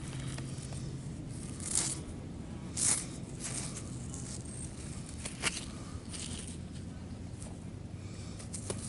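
A hand scraping and raking through coarse beach sand and gravel, with several short gritty scrapes and rustles.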